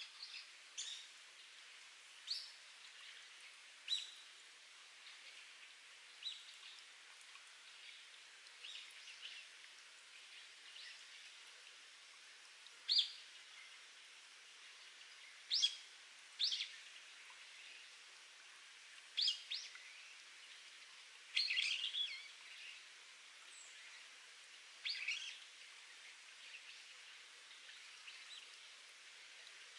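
Spring water trickling steadily off rock, with wild birds giving short chirps at irregular intervals. The loudest calls come in a small cluster about two-thirds of the way through.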